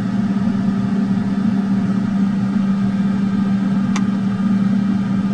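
Simulated engine and runway noise in an Airbus A320 flight-simulator cockpit during the takeoff roll at takeoff thrust: a steady drone with a low hum. A single brief click comes about four seconds in.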